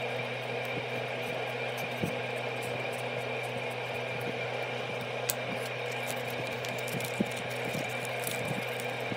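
A steady, even hum, with a few short light clicks and paper sounds as a paper card is written on with a marker and then folded open.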